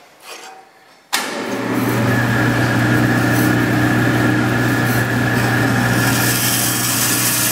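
Vertical bandsaw running, starting abruptly about a second in with a steady hum and hiss. From about six seconds in the hiss grows brighter as the blade cuts a block of soft, gummy plastic.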